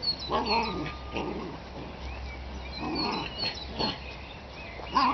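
Two Tibetan terriers play-fighting, giving several short bursts of growls and barks a few seconds apart. Small birds chirp faintly behind them.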